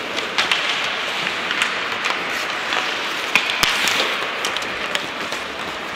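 Ice hockey play on a rink: a steady scraping hiss of skates on the ice, with scattered sharp clacks of sticks and puck. The loudest clack comes a little past halfway.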